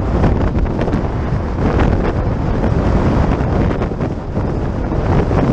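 Wind buffeting the microphone of a GoPro on a moving touring bicycle, a loud, steady rushing with uneven gusts.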